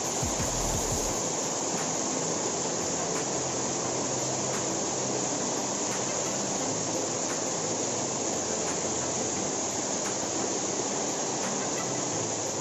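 Steady rush of water in the waterfall area, with a constant high-pitched insect drone over it. The deepest rumble drops away about a second in.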